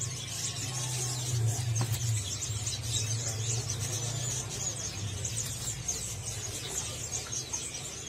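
Many small caged songbirds chirping and twittering in a dense, rapid, high-pitched chatter, over a steady low hum.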